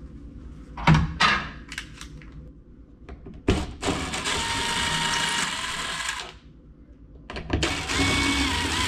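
Cordless drill-driver running in two steady bursts of a couple of seconds each, backing out the screws of a ceiling light fixture, with a whine that rises slightly as the second burst spins up. A few sharp clicks come before it as the fixture is handled.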